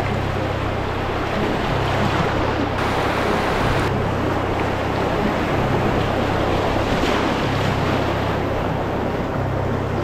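Whitewater of a river rapid rushing steadily and loudly, with a low rumble of wind on the microphone.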